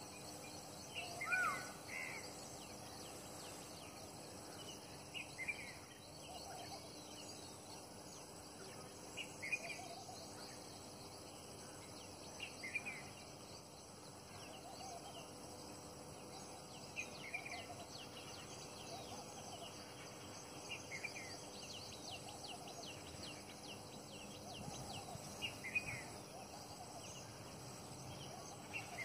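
Short bird calls repeated every three to four seconds, the loudest about a second in, over a faint steady outdoor background with insects.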